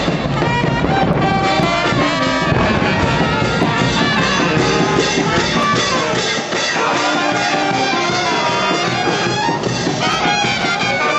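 Brass band playing, with trumpets and trombones holding and changing notes over a steady loud texture.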